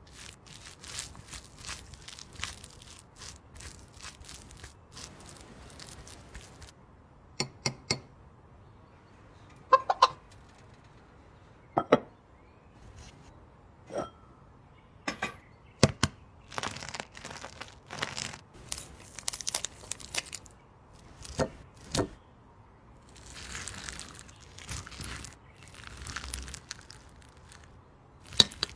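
Kitchen work sounds while making a cake: irregular sharp clicks and knocks of utensils and containers, with several stretches of rustling and scraping.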